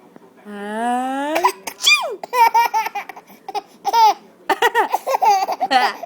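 A woman's drawn-out "ahh" rising in pitch and ending in a sharp "choo" of a sneeze, followed by a baby's high squeal and then repeated bursts of baby laughter.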